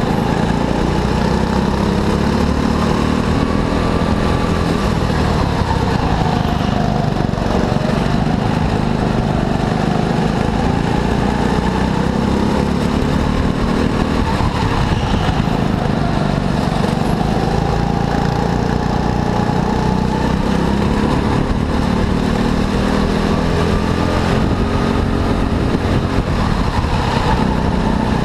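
Go-kart engine running hard during a race, its pitch rising and falling repeatedly as the kart accelerates and lifts off through the corners.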